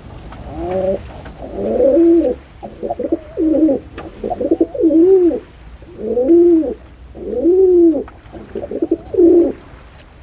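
Pigeon cooing: a run of repeated coos, each rising and falling in pitch, some broken into a rolling trill.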